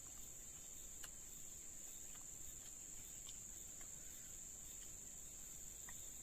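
Steady high-pitched chorus of insects, with a few faint short ticks over it.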